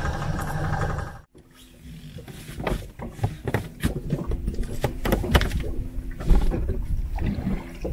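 An engine idles steadily for about a second, then cuts off abruptly. After that come scattered knocks and clatter over a low rumble.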